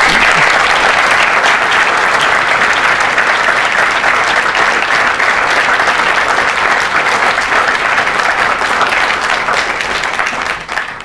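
Loud applause from a large audience, dense steady clapping that dies away near the end.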